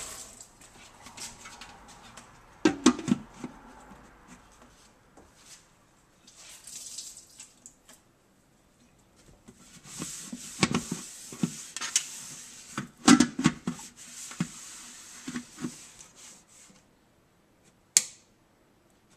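Irregular knocks and clicks of a lid being set and shifted on a Ninja slow cooker's pot, with a few loud knocks early on and a cluster later, then one sharp click near the end as the cooker's control dial is turned.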